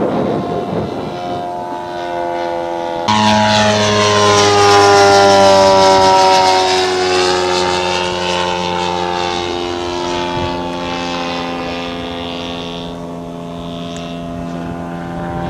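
Engine of a radio-controlled scale Pitts model aircraft running in flight. It becomes louder and clearer about three seconds in, then its pitch falls slowly as it passes by.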